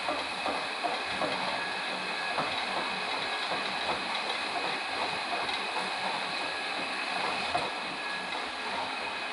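Metal lathe running at a cut: a steady mechanical noise with a faint high whine and many small scattered clicks and rattles.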